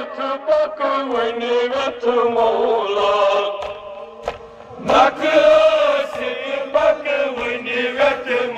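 Men chanting a Kashmiri noha, a Muharram lament, in a drawn-out melodic line, with sharp slaps of hands striking chests (matam) at short intervals.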